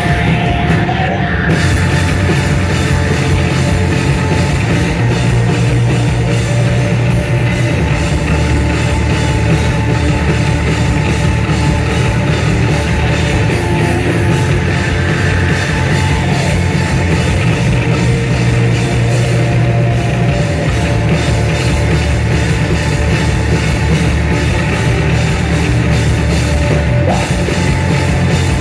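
A rock band playing live: heavy rock with guitars and drum kit, loud and unbroken.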